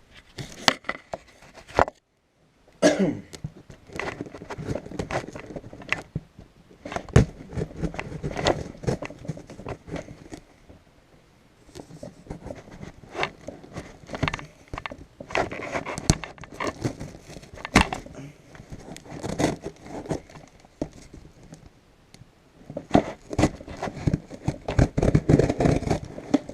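Handling noise: irregular clicks, knocks and scraping rustles as a cardboard shipping box is handled and readied for opening, with a short quiet gap about two seconds in.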